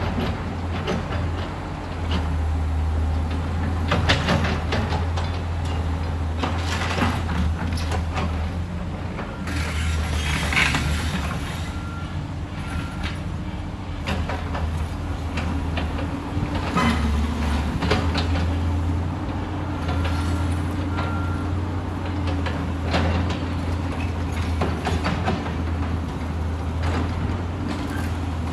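Excavator engine running steadily under load, with repeated metallic clanks and knocks from the machine working. The engine note dips briefly about halfway through, and a few short high beeps come about a third of the way in and again later.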